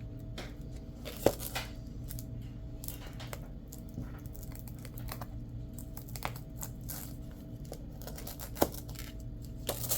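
Hands handling plastic and craft materials: scattered rustling and crinkling with light taps, and a few sharp clicks, about a second in and twice near the end. A steady low hum runs underneath.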